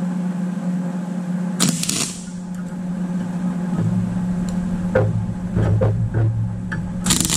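MIG welder tack-welding: two short bursts of arc crackle, about 1.6 s in and again near the end, over the steady hum of the welding machine.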